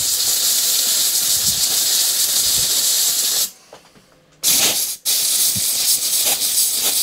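Compressed-air blow gun blasting dirt off a two-stroke hedge trimmer's engine: a strong hiss of air that stops for about a second a little past the middle, then comes back as a short blast and another long one.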